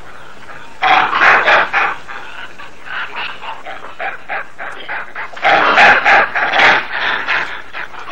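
Rhesus macaques screaming harshly during a fight between groups. The calls come in bursts: a loud burst about a second in, quieter calls through the middle, and another loud burst around six seconds in.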